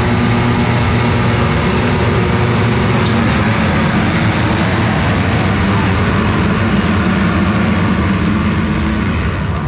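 Motocross bike engine running hard at a fairly steady pitch, with a continuous rushing noise over it.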